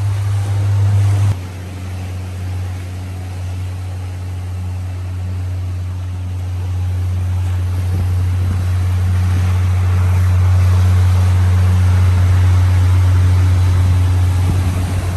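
Boat engine running steadily with a low drone. It drops a little in level about a second in, then grows gradually louder through the second half.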